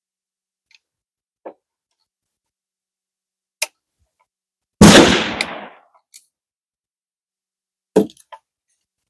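Gunshots: a loud shot about five seconds in that rings out for about a second, and a shorter, sharper crack about three seconds later, with a few faint clicks before them.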